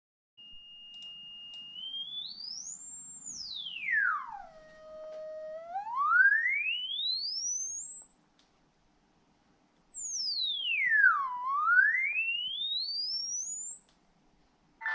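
Sine-wave test sweep played through a homemade tweeter with a polypropylene dome made from a ping-pong ball. A single pure tone holds steady, glides up, falls to a low steady note, then climbs very high. After a short break it sweeps down and back up again before cutting off.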